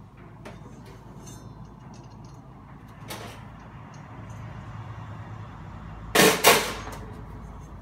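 A hammer knocking on the steel of a mat washer during work on its stuck drive pulley: two sharp, ringing metal clanks about a third of a second apart near the end, with a softer knock about three seconds in.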